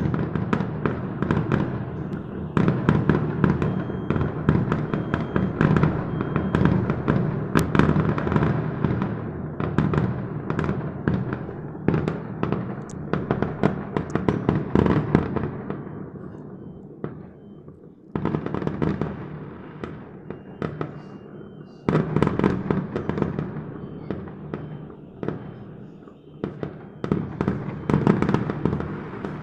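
Fireworks going off in a dense, rapid crackle of many bangs. The barrage thins out about halfway through, then new volleys start abruptly and build up again.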